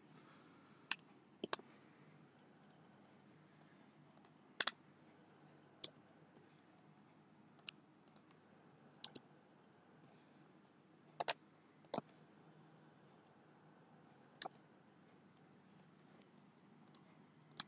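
Sparse computer keyboard keystrokes and mouse clicks as numbers are entered into a form: about a dozen short single clicks, some in quick pairs, spaced a second or more apart over a faint hum.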